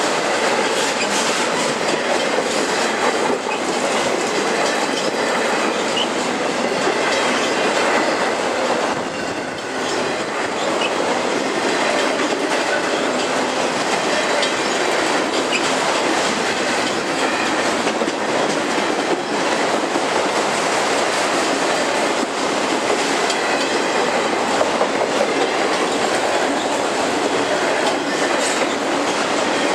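Empty autorack freight cars rolling past close by: a steady rumble and rattle of steel wheels on rail, with wheels clicking over the rail joints.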